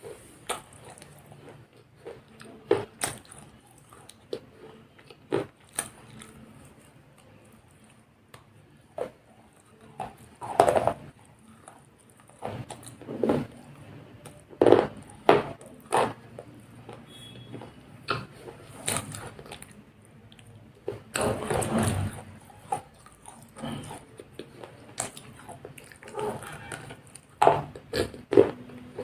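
Biting into and chewing KitKat chocolate wafer bars: irregular sharp crunches and snaps between softer chewing, with a longer run of crunching about three quarters of the way through.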